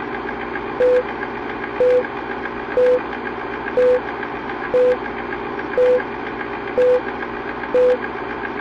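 Film-leader countdown sound effect: a steady, rapidly clattering film-projector run with a short beep once a second, eight beeps in all.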